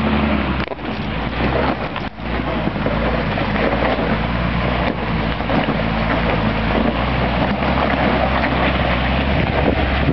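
Toyota Land Cruiser FJ40's engine running steadily as the truck crawls up a hill, with wind rumbling on the microphone.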